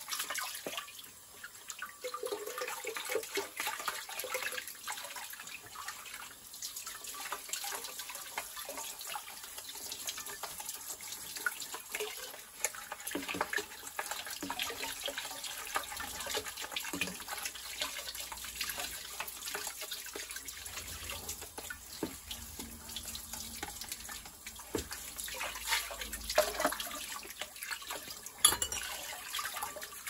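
Tap water running and splashing over a plastic tumble dryer part held in a sink, while it is scrubbed by hand with a brush and cloth. Small knocks of plastic come throughout, the sharpest near the end.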